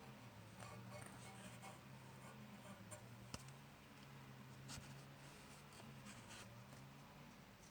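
Faint scratching and rubbing with a few small clicks, over a low steady hum.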